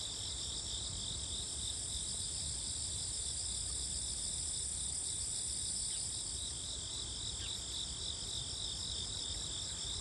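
A steady chorus of autumn grass insects, crickets among them, trilling in softly pulsing high notes at several pitches, over the low, even rush of a swollen, fast-running creek.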